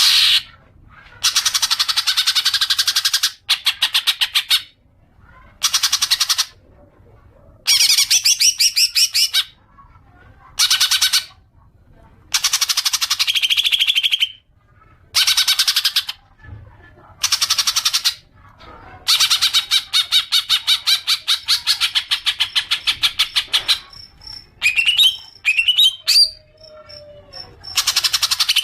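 Cucak ijo (green leafbird) singing its 'ngekek' chatter in repeated bursts of rapid notes, each one to two seconds long with short pauses between, and a few slurred whistles near the end. A lure song used to provoke other cucak ijo into long chattering.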